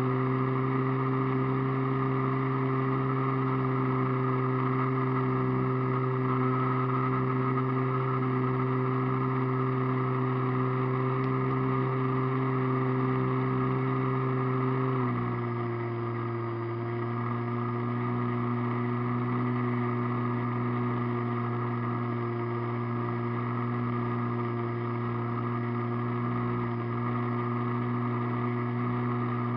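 Radio-controlled airplane's motor and propeller, picked up by the onboard camera, running steadily at a constant pitch. About halfway through the pitch and level drop slightly as the throttle comes back a little.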